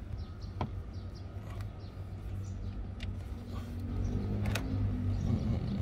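A motor vehicle engine growing louder in the second half, over a low steady rumble, with a few light clicks.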